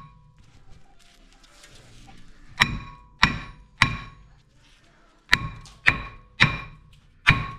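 Hammer blows on the Vito's steel brake disc, each strike ringing like a bell. Three blows about half a second apart, a short pause, then four more.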